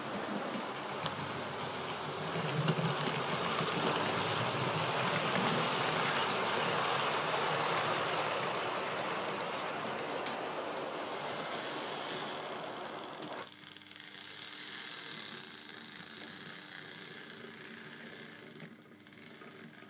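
OO gauge model train running past on the layout's track: a steady rushing rumble of wheels on rail that builds to its loudest in the middle, drops off suddenly about two-thirds of the way through, and leaves a quieter rush with a low steady hum.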